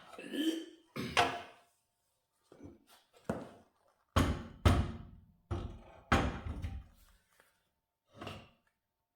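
Heavy metal lathe parts being lifted and set down: a series of about seven thuds and knocks, the loudest in the middle.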